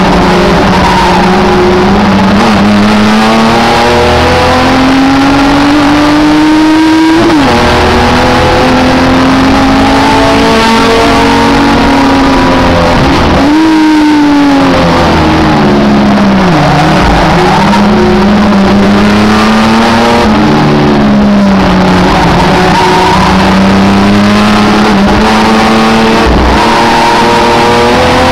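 Race car engine heard from inside the cockpit under hard acceleration, its pitch climbing steadily. It drops sharply at a gear change about 7 seconds in and again about 14 seconds in, dips through a corner, then climbs again.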